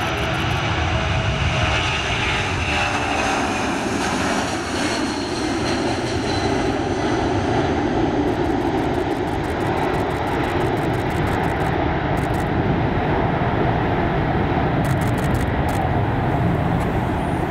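Four Pratt & Whitney F117 turbofan engines of a Boeing C-17A Globemaster III at takeoff power, a loud steady jet roar through the takeoff roll, lift-off and climb-out. A high whine rides on top for the first few seconds and fades after about six seconds.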